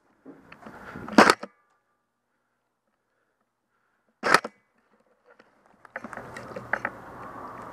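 Two short, sharp bangs, one about a second in and one a little after four seconds. From about six seconds on comes a steady rustle and crunch of footsteps and gear on dry dirt.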